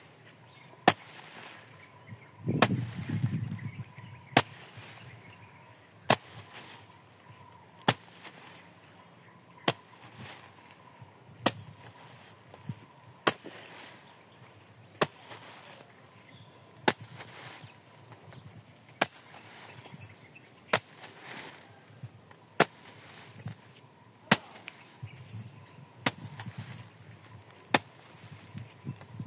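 Homemade pipe hole punch, a serrated metal can on a pole, being driven down through plastic mulch film on a raised bed in a steady rhythm, one sharp crack per hole about every second and a half to two seconds. A brief low rumble a few seconds in.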